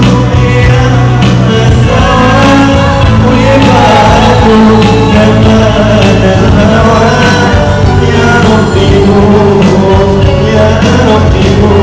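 Loud music with a singing voice over steady instrumental accompaniment.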